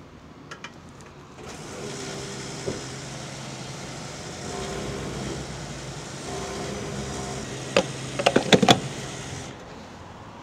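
Petrol pump dispensing fuel through the nozzle into a Honda PC50 moped's tank: a steady hum with the rush of flowing fuel starts about a second and a half in. Near the end comes a quick run of sharp clicks from the nozzle, and then the flow and hum stop.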